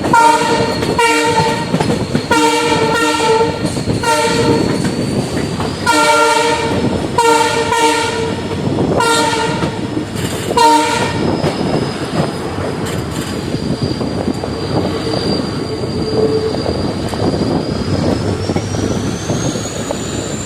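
WDP-4 diesel locomotive's horn sounding a quick run of about ten short honks over the first eleven seconds, heard from the train it is hauling. The train then rolls on with the rumble and clatter of its wheels on the track.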